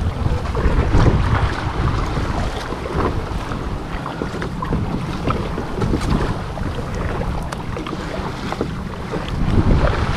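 Wind buffeting the microphone over sea water splashing around an ocean kayak under way, a rough steady rush with scattered brief sharper splashes.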